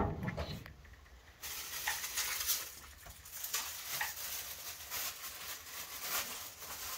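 A wood-burning kitchen stove's door is shut with a sharp clank at the very start. A hiss with scattered small clicks and crackles follows.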